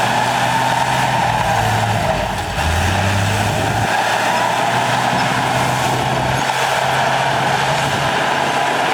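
Heavy diesel earthmoving machinery running under load, a steady engine note over a clattering mechanical noise. About two and a half seconds in, the engine note briefly drops lower for about a second, then settles back.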